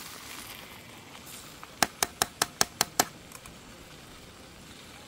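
A quick run of seven sharp clicks, about five a second, starting a little under two seconds in.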